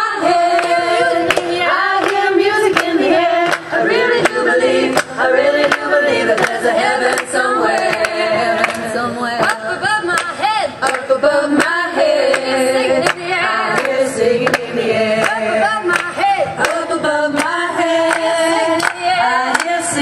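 A group of voices singing together, with sharp taps or clicks sounding throughout.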